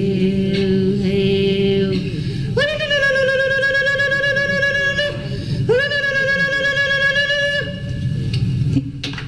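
A Sioux praise song sung by women's voices, played from a 1968 field recording. One long held note gives way to two higher sustained notes, each about two seconds long, over a steady low background noise from the old tape, and the singing stops near the end.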